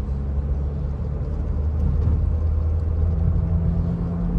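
Chevrolet Cruze driving, heard from inside the cabin: a steady low drone of engine and road. There is no whine from the automatic transmission, which runs quiet after its repair.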